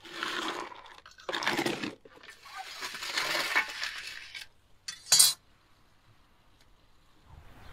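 Metal baking pans and a knife blade scraping and clinking on a stone oven floor in several bursts, with one sharp, loud clink about five seconds in.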